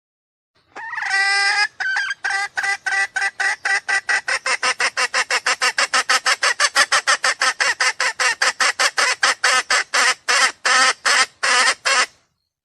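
Junglefowl lure call: one drawn-out note followed by a long run of short, rapid clucks. The clucks quicken to about five a second, then slow and stop about eleven seconds later.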